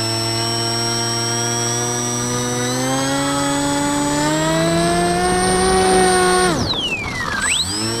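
Radio-controlled float plane's motor and propeller running with a high whine, pitch creeping up as it taxis on the water. Near the end the throttle is chopped, the pitch plunges, then it is opened again and the pitch climbs back within about a second.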